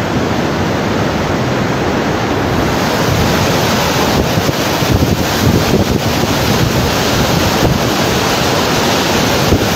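Muddy floodwater rushing through a river bed in a loud, steady, churning rush, with wind buffeting the microphone.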